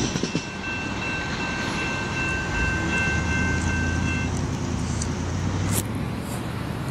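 Level-crossing warning bell ringing as a steady high tone, stopping about four seconds in as the crossing gates rise after the train has cleared. A low engine rumble runs underneath, with a sharp click near the end.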